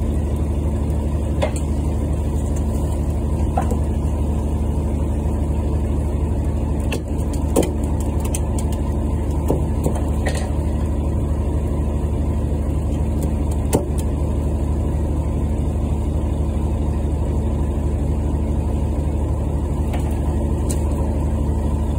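Fishing boat's engine running steadily with a low hum, with a few scattered clicks and knocks on board.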